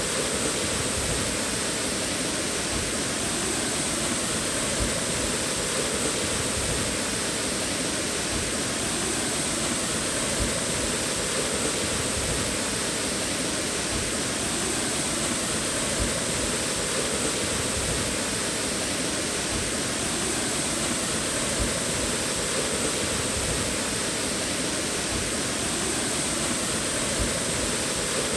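Steady rush of water from a waterfall, an even noise with no break or change.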